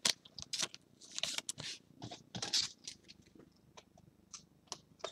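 Trading cards being handled and put down on a stack: irregular soft clicks, flicks and slides of card stock, a little busier in the first three seconds.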